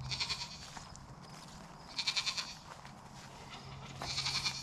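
An animal call, high-pitched and rapidly pulsing, repeated three times about two seconds apart, over a faint steady low hum.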